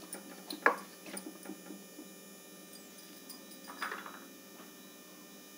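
Wooden spatula stirring vegetables and water in a pressure cooker, with a few soft knocks against the pot, the loudest just under a second in, and a brief faint clatter near four seconds.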